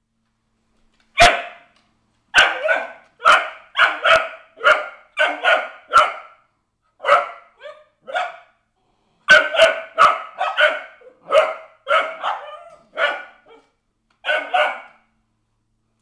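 Cardigan Welsh Corgis barking in quick runs of short, sharp barks with brief pauses between runs, their response to a vacuum cleaner.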